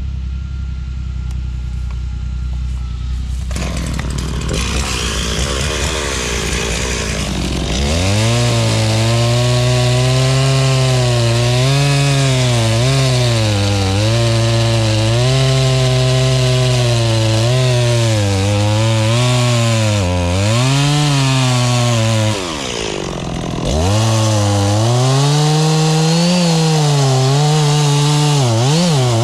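Chainsaw cutting into a grevillea trunk during felling. It starts with a low steady run, then from about eight seconds in it runs at high revs, its pitch dipping and recovering as the chain bogs into the wood. It drops off briefly near the end and revs up again.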